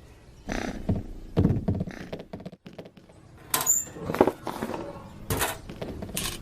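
A series of about six thumps and knocks, unevenly spaced, with a short high squeak in the middle.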